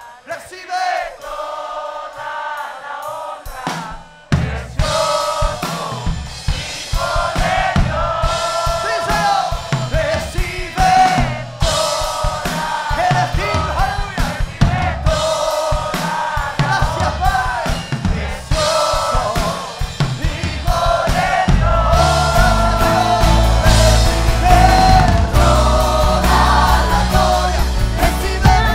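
Live worship song: a male lead singer with acoustic guitar and a female backing singer, quiet and sparse at first, then the drums and full band come in about four seconds in. The band gets louder and heavier in the bass in the last quarter.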